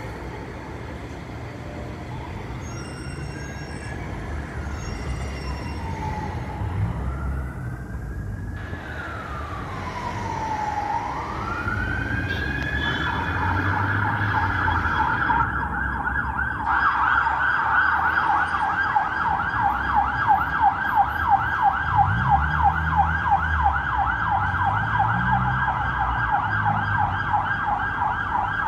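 Emergency vehicle siren over traffic noise. It starts as a slow wail rising and falling every few seconds, switches about halfway through to a fast warbling yelp, and grows louder throughout.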